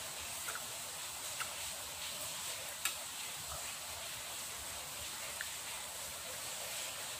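Steady hiss of rain falling, with a few faint short clicks from eating and picking food off a metal tray.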